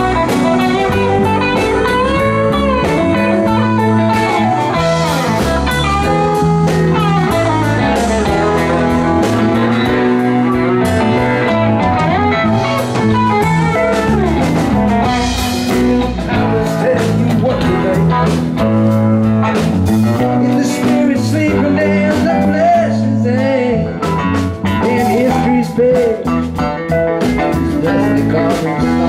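Live rock band playing, with an electric guitar taking a lead line of bending notes over bass guitar and drums.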